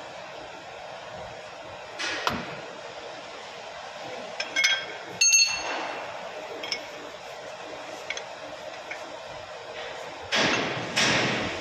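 Steel bar and brake parts of a Mitsubishi Canter's front disc brake clinking and knocking as the caliper is pried off the disc: a few sharp, ringing metal clinks around the middle, then louder knocks near the end, over a steady background hiss.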